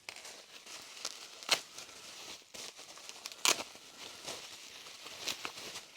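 Wrapping crinkling and rustling as vacuum cleaner tools are unwrapped by hand, with a few sharp clicks or knocks, the loudest about three and a half seconds in.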